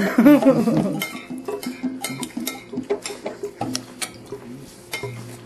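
Cutlery clinking and scraping on plates as people eat, in scattered light clicks.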